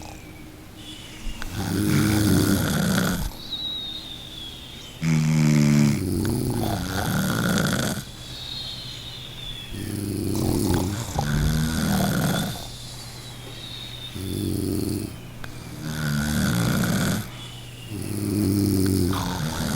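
Loud snoring: a rough, rasping snore every two to three seconds, in a steady sleeping-breath rhythm.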